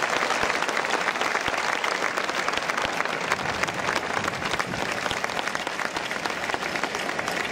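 Crowd applauding, a steady patter of many hands clapping that eases a little near the end.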